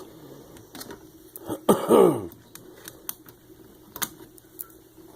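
Scattered light clicks and taps of metal parts and hand tools being handled during disassembly, with one short vocal noise falling in pitch, like a throat-clear, about two seconds in.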